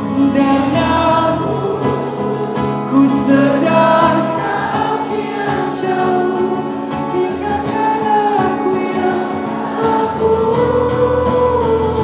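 Live band music with singing, carried by acoustic guitar, heard from within the concert audience.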